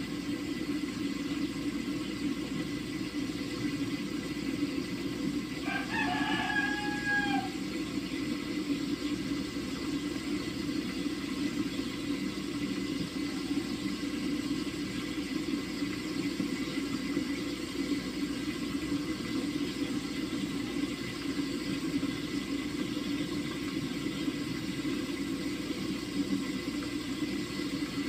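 A rooster crows once, about six seconds in: a single call of about a second and a half that dips in pitch at its end. It sounds over a steady low rumble.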